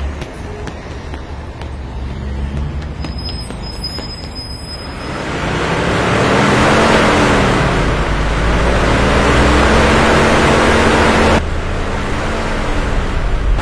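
A car engine running with revs rising and falling over a rush of road noise, swelling loud about five seconds in and easing back briefly near the end.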